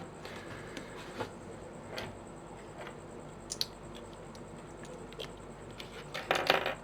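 Plastic pieces of a 5x5 puzzle cube clicking and scraping as they are slid into place by hand: a few scattered clicks, then a quick cluster of clicks near the end.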